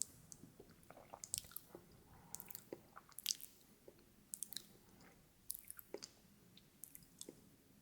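Close-miked ASMR mouth sounds: irregular wet clicks, pops and smacks of the tongue and lips, like chewing, with the loudest pop a little past three seconds in.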